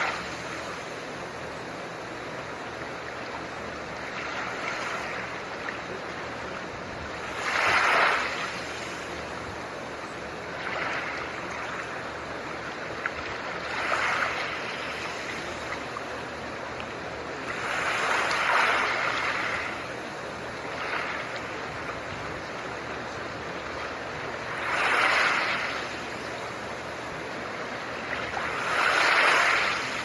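Steady hiss of blue noise under soft ocean waves. A wave swells and washes back every three to four seconds.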